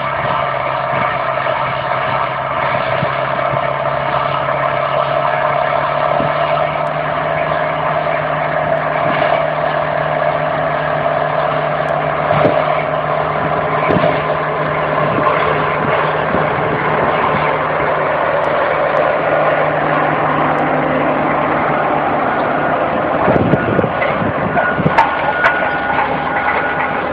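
John Deere 6110 SE tractor engine pulling steadily under load as it draws a Hatzenbichler Delta 3 subsoiler through wheat stubble, its note holding an even pitch. Near the end, as the subsoiler passes close, sharp clicks and cracks join the engine sound.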